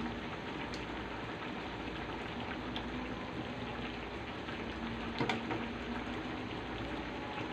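Soupy sautéed pechay and sardines simmering in a wide metal pan: a steady bubbling hiss, with a few light clicks, the clearest about five seconds in.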